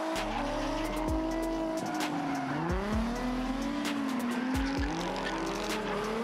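Two drift cars sliding in tandem, their engines revving up and down over and over, with tyres squealing and sharp cracks through the run.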